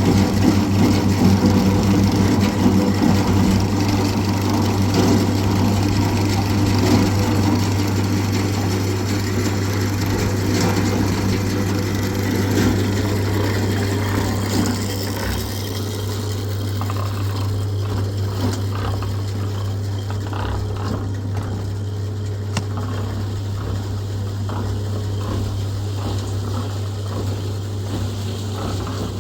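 A motor-driven machine running steadily with a low hum and a continuous mechanical rattle. About halfway through the heavier churning eases and a lighter clicking rattle carries on.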